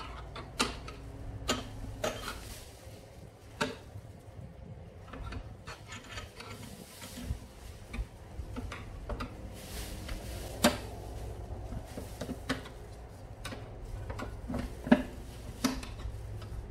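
Flat-tip screwdriver prying and scraping at the metal cover plate of an X-ray tube housing, with irregular sharp clicks, light knocks and rubbing as the plate and its parts are worked loose.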